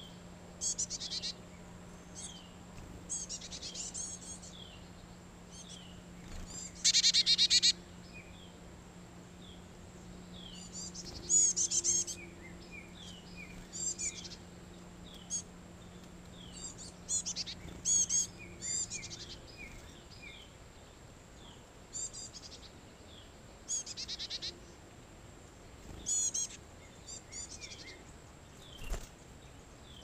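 Backyard songbirds calling around a feeder: a scattered string of short chirps and whistled notes, with one louder call about seven seconds in.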